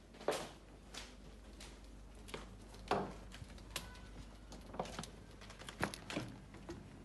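Irregular footsteps and small knocks, about a dozen, from someone walking with a handheld phone. The loudest come about a third of a second in, around three seconds in, and near the end.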